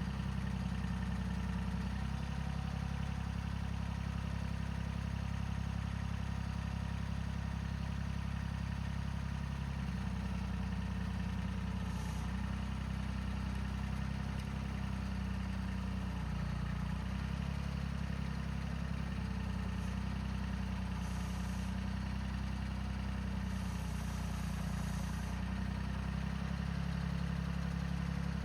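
Tractor engine running steadily at a low idle, a constant low hum.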